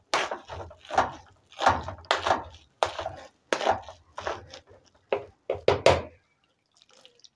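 Metal potato masher pressing down into boiled potatoes softened with milk in an aluminium pot: a steady run of short thuds against the pot, about two to three strokes a second, stopping about six seconds in.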